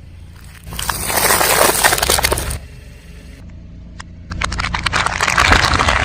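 A car tyre rolling over brittle objects and crushing them, with two bursts of dense crackling and crunching, each about two seconds long. The car's engine runs steadily underneath.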